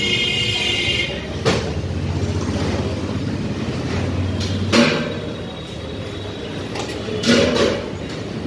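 Steady low hum of background noise, with a few short metallic clinks of a steel spoon against a steel bowl of sambar: one about a second and a half in, one near the middle and a couple near the end.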